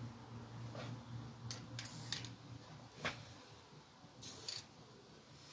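Faint, short hisses of an aerosol spray-paint can sprayed in light puffs, a couple about two seconds in and a longer one near the end, with a single sharp click about three seconds in.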